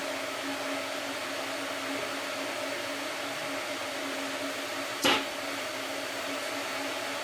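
Steady machine hum, a motor or fan running, with one sharp knock about five seconds in.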